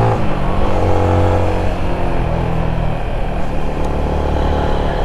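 Yamaha Sniper 155's single-cylinder engine running as the motorcycle rides along. Its note drops right at the start as the revs fall, then runs lower and steadier.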